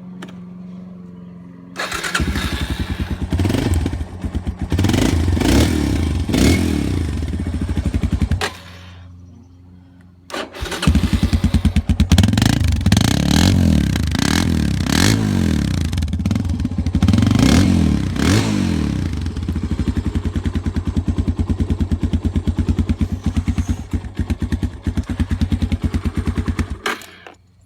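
A 2008 Yamaha Raptor 250 ATV's single-cylinder four-stroke engine starts about two seconds in, is revved up and down a few times, then stops. It starts again a couple of seconds later, is revved repeatedly, settles into a steady run and is shut off just before the end.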